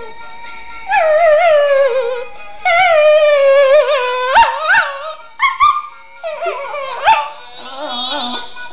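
A dog howling along to music: two long wavering howls that fall in pitch, followed by several short rising yips.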